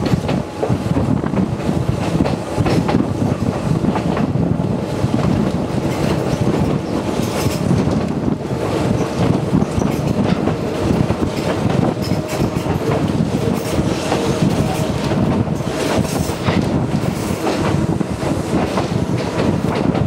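Electric commuter train of the Konan Railway Owani Line running at speed, heard through an open side window: steady rumble of wheels on rail with repeated clacks over rail joints and air rushing past. A faint steady whine joins in about halfway through.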